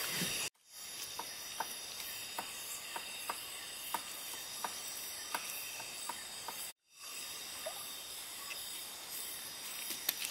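Night rainforest ambience: insects trilling steadily in a high hiss, with scattered short ticks and chirps. The sound cuts out completely twice for a moment.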